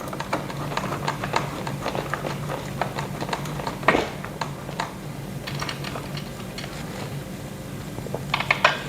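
Small metal clicks and taps of an Allen key and bolts being worked while screwing a chair's backrest on, with a louder click about four seconds in and a quick run of clicks near the end.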